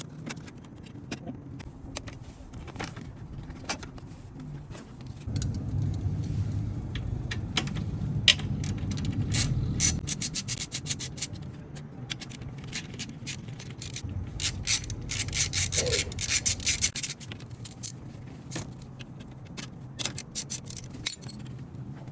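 Hand tools and car parts clicking and scraping as the front end of a crashed Honda Civic is taken apart. Two runs of rapid clicks come through the middle, over a low rumble.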